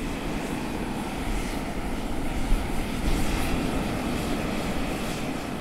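Volcanic fumarole venting steam: a steady, loud hissing rush with a deep rumble beneath it.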